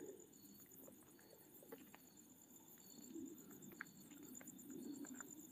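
Near silence, with faint short high cricket chirps repeating about once or twice a second and a few soft clicks.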